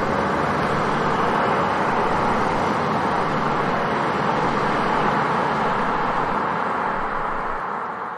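Steady car driving noise, a stock vehicle sound effect without a distinct engine pitch, fading away near the end.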